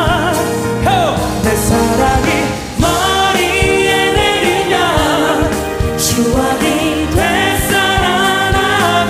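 Live pop ballad: a male lead voice sings with vibrato over a string orchestra of violins and cellos, with steady drum hits underneath.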